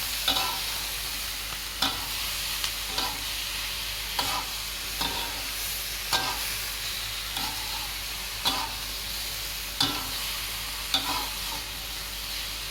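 Squid and green chilies sizzling in hot oil in a wok while being stirred, a spatula knocking and scraping against the wok about once a second.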